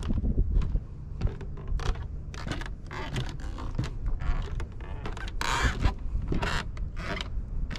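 Footsteps on a wooden boardwalk at a walking pace, the planks creaking and knocking underfoot, over a steady low rumble.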